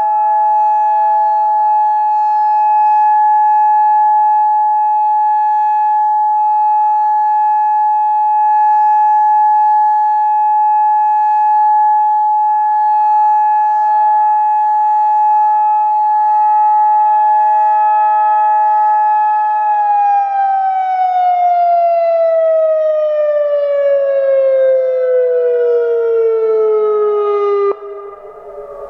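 Federal Signal Modulator 3012 outdoor warning siren sounding a steady two-tone chord. About two-thirds of the way through it is shut off and winds down, both tones sliding smoothly lower in pitch as the rotor slows, and the sound falls away sharply shortly before the end.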